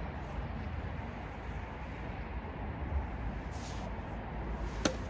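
Steady low outdoor background rumble, like distant traffic, with a single sharp knock near the end.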